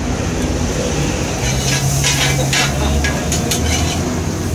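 Food stall background: a steady low rumble, with a run of short clattering noises in the middle.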